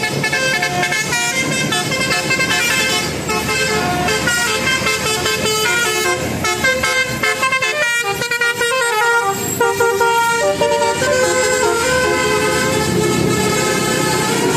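Bus telolet horn: a multi-tone air horn playing a continuous melody of short stepped notes.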